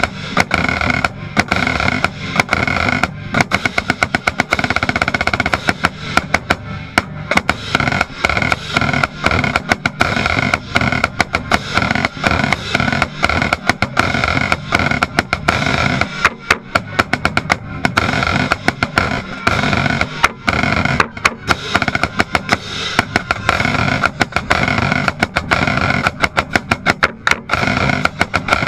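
Marching band playing, with a snare drum right at the microphone: its rapid, sharp strokes are the loudest sound, over held band chords.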